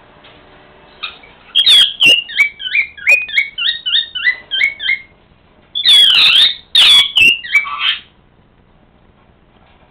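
Pet parrot calling: a quick run of short, repeated high chirps, about three a second, then a few loud, harsh screeches.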